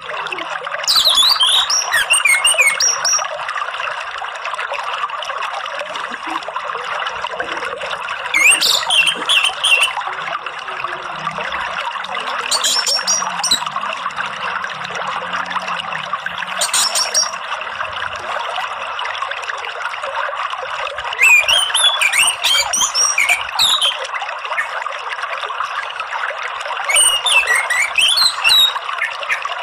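Orange-headed thrush singing in six bursts of varied, whistled phrases a few seconds apart, over the steady rush of flowing water.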